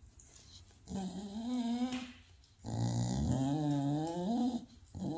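A bulldog vocalizing back at its owner in drawn-out calls whose pitch wavers up and down: one about a second in, a longer one after it, and a third starting near the end.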